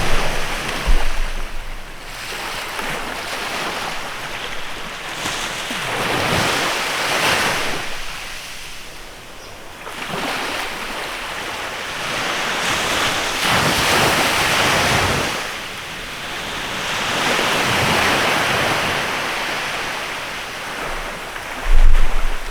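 Small waves washing onto a beach, the surf noise rising and falling in slow swells every few seconds. Wind buffets the microphone with a low rumble near the start and again near the end.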